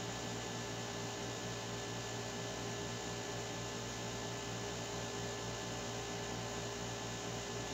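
A steady low hum with an even hiss behind it, unchanging throughout, with no distinct events.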